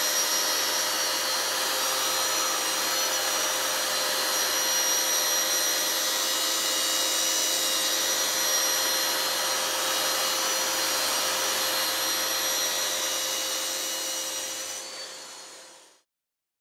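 Electric sander running steadily as it sands dried filler on a wall, a constant motor whine over the noise of the pad on the surface; it fades out near the end.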